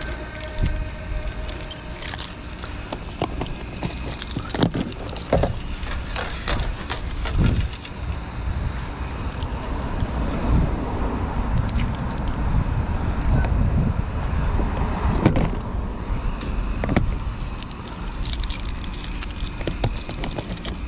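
A bunch of keys jangling, with scattered clicks and knocks, as a hand works at a truck's roof rack, over a steady low rumble.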